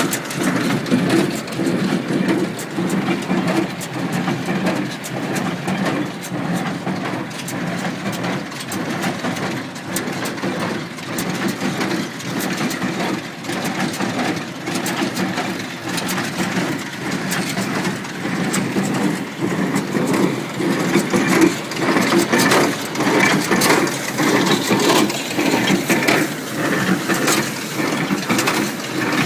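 International Harvester 47 square baler running and baling hay, its plunger packing the hay in a regular beat about once a second over the steady sound of the tractor engine running just above idle; everything is working as it should.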